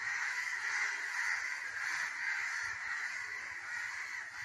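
Crows cawing without a break, many calls overlapping into a steady din: alarm calling while a kitten attacks a crow on the ground.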